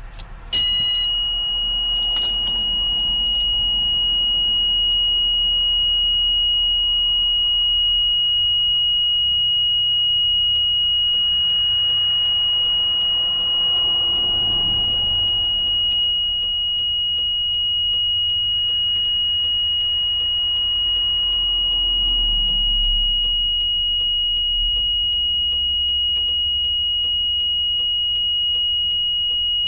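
A steady, high-pitched electronic warning tone in the LMTV truck switches on about half a second in and sounds without a break, over the low rumble of the truck running.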